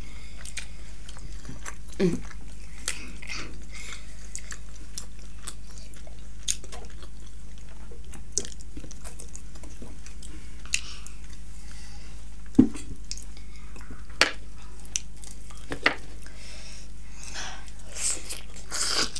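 Close-miked mouth sounds of people eating buff momo dumplings and chicken lollipop: chewing, with wet lip-smacks and clicks scattered through, and a few brief hums of the voice. A steady low hum lies under it all.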